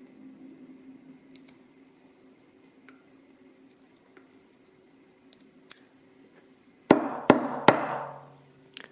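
Small metal lock parts and picking tools clicking faintly while a jammed pin spring in a dimple lock core is worked on, then three sharp metallic knocks in quick succession about seven seconds in, each with a brief ringing tail, and one last small click near the end.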